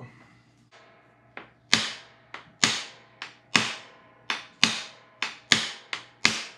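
A pane of display glass being tapped with the hand tool along a scored cutting line to run the crack through: about a dozen sharp taps, stronger and weaker in turn, each with a short ringing tail, starting about a second in.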